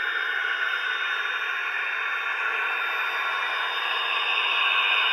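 The DCC sound decoder of a Dapol Class 68 model diesel locomotive plays its engine sound through the small on-board speaker while the model runs along the track: a thin, hissy diesel note with no bass. It grows a little louder and brighter about four seconds in, as the locomotive nears the microphone.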